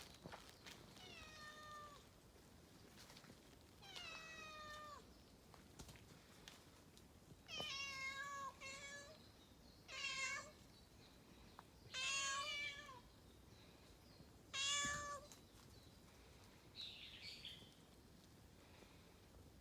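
A domestic cat meowing again and again, about six separate meows a couple of seconds apart. Each call drops in pitch at its end, and the later meows are louder.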